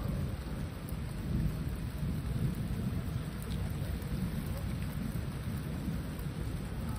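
Thunder rumbling continuously and low, with rain falling.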